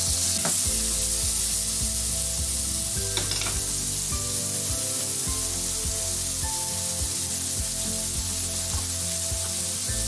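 Seasoned prawns sizzling steadily in hot olive oil in a non-stick frying pan, with a couple of light knocks as they are tipped in and spread out with a spatula.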